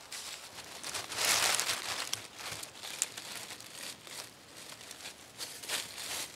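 Footsteps crunching and rustling through dry fallen leaves, in irregular steps, loudest about a second in, with one sharp snap near the middle.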